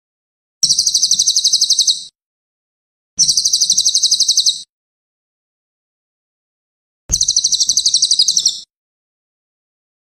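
Cililin singing three high, fast trills of about a dozen notes a second. Each trill lasts about a second and a half, with a gap of a second or two between them.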